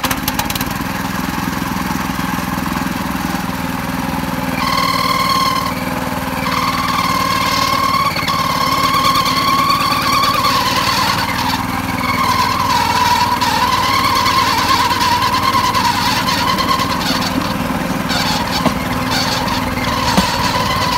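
Motorised bamboo train (norry) running along the rails: a steady engine and rattle. A wavering high whine rides over it from about five seconds in, with a few sharp clacks near the end.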